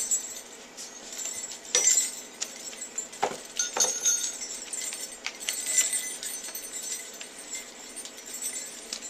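Sleigh bells jingling in irregular clinks and shakes, with a few sharper knocks about two and three and a half seconds in.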